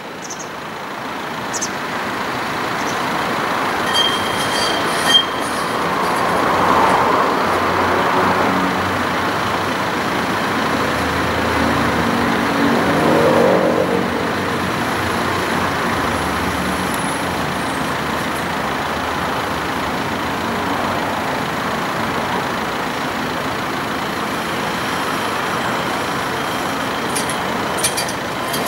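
Steady street traffic with vehicles passing, and an orange low-floor tram rolling slowly along a curved track toward the listener in the second half. There are a few short clicks about four and five seconds in.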